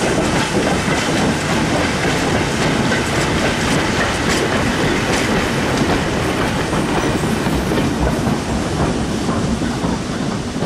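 A goods train of four-wheeled vans and a brake van rolling slowly past, wheels clicking and clanking over the rail joints. The sound eases off near the end as the last vehicle goes by.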